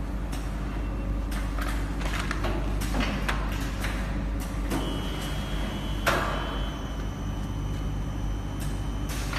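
Automatic spout-pouch filling and capping machine running: a steady hum under irregular clacks and short hissing strokes from its moving parts, the sharpest about six seconds in. A thin high whine comes and goes over it.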